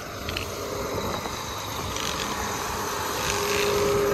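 Tractor engine running steadily, heard as a low rumble under an even hiss that grows slightly louder toward the end.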